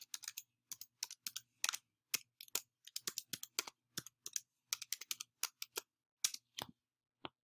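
Typing on a computer keyboard: a run of irregular key clicks, a few a second, stopping near the end.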